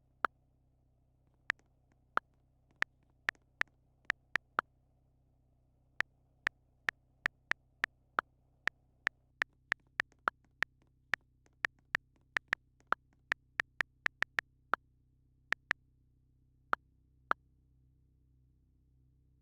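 A long run of sharp single clicks, irregularly spaced at roughly two a second, over a faint low hum. The clicks stop about two seconds before the end.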